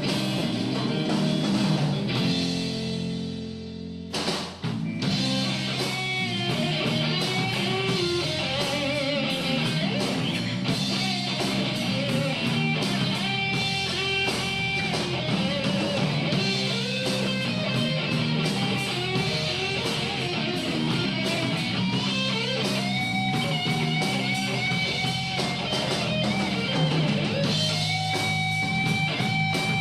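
Instrumental rock music: guitar with a drum kit playing a passage without singing, with a brief drop around four seconds in.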